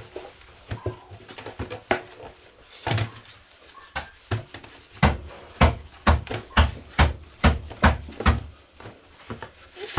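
A series of sharp, heavy knocks, scattered at first and then coming regularly about two a second for several seconds in the second half.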